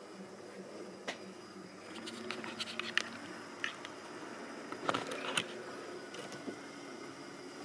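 Handling noise: scattered light clicks and knocks, a cluster of them about five seconds in, over a steady low hum.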